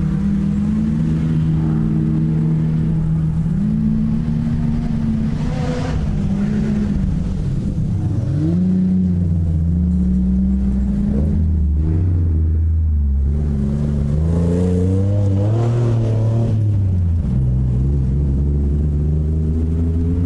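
Off-road racing car engine running hard, its pitch climbing and falling repeatedly as the throttle opens and lifts, with several sudden drops in pitch.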